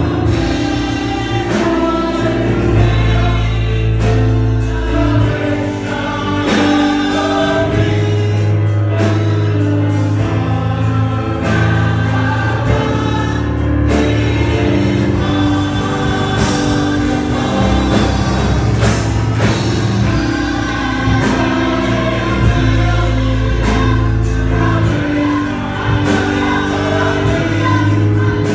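Gospel choir singing in harmony with instrumental accompaniment and a deep, sustained bass line.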